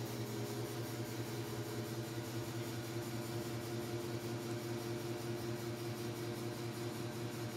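High-velocity metal floor fan running at a steady speed: an even rush of air with a constant motor hum and a faint steady tone above it.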